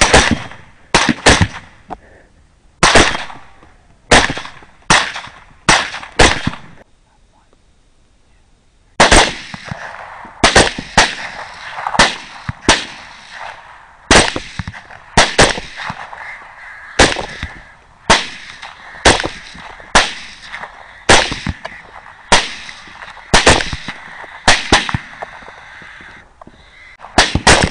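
Rifle fire: dozens of shots in quick succession, each a sharp crack with a short ringing tail, broken by a pause of about two seconds a quarter of the way in.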